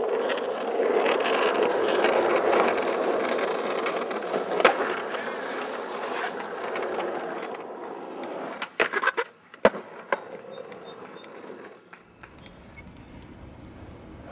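Skateboard wheels rolling on asphalt, with a sharp clack about four and a half seconds in and a quick cluster of clacks from the board popping and landing a little past the middle. After that the rolling grows quieter.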